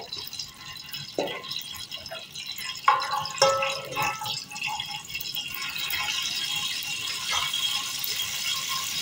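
Whole cumin seeds sizzling and crackling in hot oil in an aluminium pot, the tempering (tadka) stage. The sizzle grows louder and steadier from about halfway, with a few sharp clicks in the first half.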